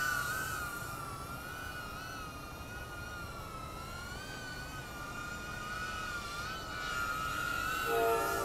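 EMAX Tinyhawk III tiny-whoop FPV drone in flight: a high, steady whine from its motors and propellers, its pitch wavering slightly up and down as the throttle changes.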